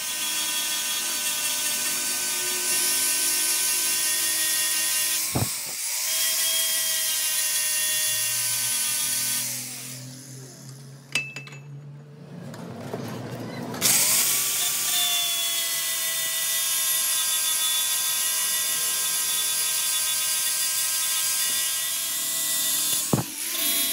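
Handheld angle grinder grinding the end of a steel square shaft held in a bench vise: a steady motor whine over the hiss of the disc on metal. About ten seconds in it winds down and stops, then spins up again about four seconds later and grinds steadily on.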